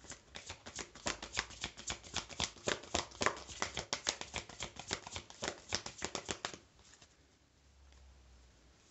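A deck of oracle cards being shuffled hand over hand: a quick, uneven run of soft card slaps and flicks that stops about six and a half seconds in.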